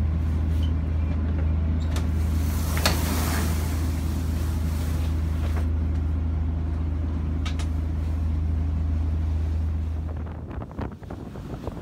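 Steady low drone inside the cabin of a Marex 373 motor cruiser as its sliding roof opens, with a few sharp clicks and a rush of air about three seconds in. The drone cuts off near the end, giving way to gusty wind.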